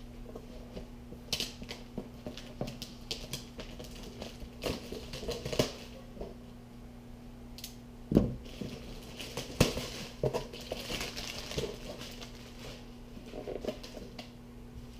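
Packaging of a reloading kit being opened and handled by hand: irregular rustling, crinkling and knocks as parts and bags are moved, with a faint steady hum underneath.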